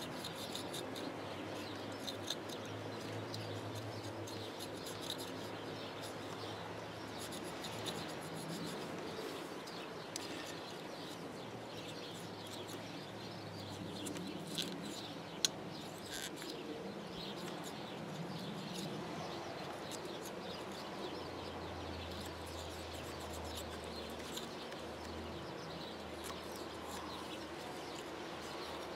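Quiet outdoor ambience with birds chirping now and then over a faint low hum. Light scratching and a few small clicks come from a cotton swab scrubbing grime out of a plastic wiring-connector on a snowplow light module, with one sharp click about halfway through.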